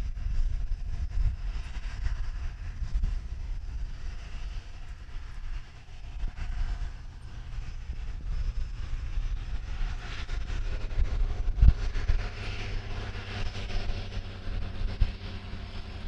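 Jet aircraft engines running, their noise growing stronger about ten seconds in, over a gusty low rumble of wind on the microphone.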